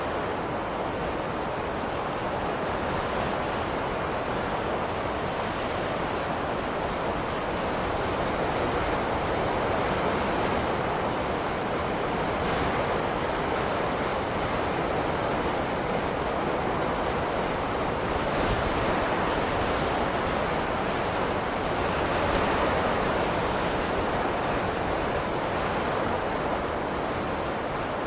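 Wind sound effect: a steady, dense rushing hiss of wind that swells and eases slowly a few times.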